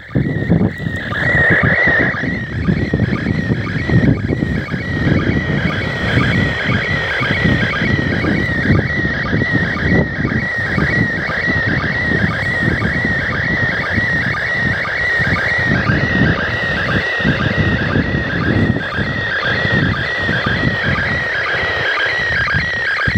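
Slow-scan TV picture signal from the International Space Station coming through a handheld FM radio's speaker: a continuous warbling electronic tone with an evenly repeating beat from the line sync pulses. Wind buffets the microphone underneath it.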